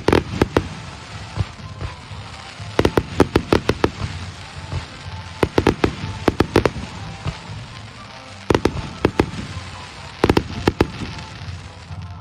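Aerial fireworks exploding in rapid clusters of sharp bangs, a new volley every two to three seconds.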